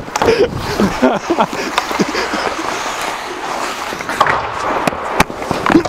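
Ice-skate blades scraping and carving on rink ice, with players' voices calling out now and then. One sharp knock about five seconds in.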